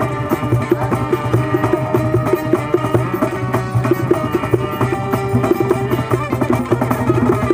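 Live acoustic music: bongos played with quick hand strokes over plucked strings from a guitar and a long-necked lute.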